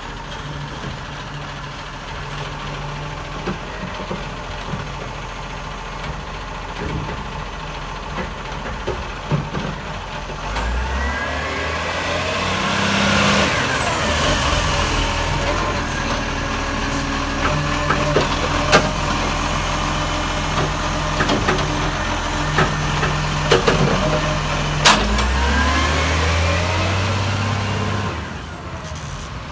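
Dennis side-loader garbage truck at work: the diesel engine runs steadily, then revs up about a third of the way in to drive the lifting arm's hydraulics, with rising and falling hydraulic whines and sharp clanks as a wheelie bin is lifted and tipped into the hopper. The engine drops back to idle just before the end.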